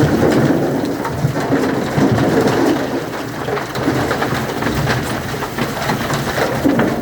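Concrete mixer drum turning, with a continuous rumbling, rattling clatter from the crusted drum.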